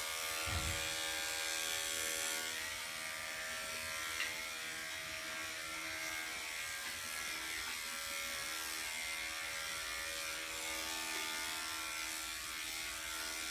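Electric pet grooming clippers with a 1/2-inch attachment comb, running with a steady motor hum as they skim through a small dog's coat. There is a brief low thump just after the start.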